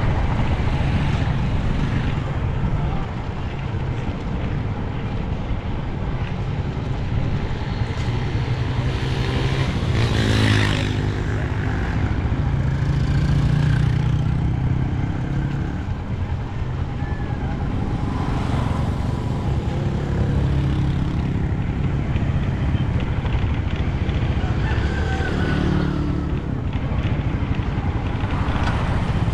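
A motor vehicle running steadily on the move, with a dense low rumble of engine and road noise. About ten seconds in, a brief louder pitched sound rises over it.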